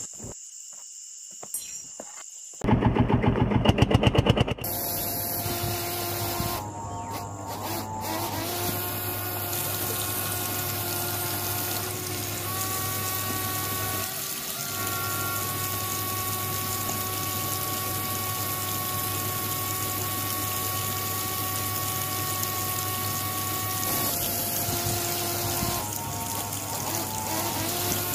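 Small DC-motor toy water pump running with a steady hum and whine, water splashing from its outlet pipe. Near the start, a loud rapid clicking rattle lasts about two seconds before the steady running sets in.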